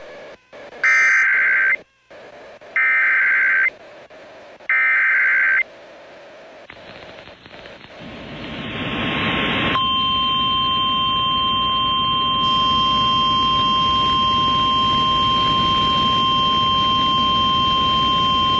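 NOAA Weather Radio alert signal: three one-second bursts of screeching digital data tones, the SAME header that codes the warning, then a rising radio hiss. From about ten seconds in comes the steady 1050 Hz warning alarm tone that announces a new warning.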